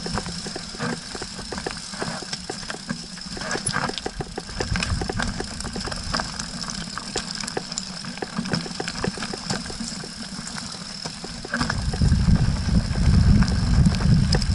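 Mountain bike rattling down a rocky singletrack: a dense, uneven run of clicks and knocks as the bike and camera mount are shaken over stones. About twelve seconds in, a louder low rumble of wind buffeting the microphone sets in as the trail opens and the speed rises.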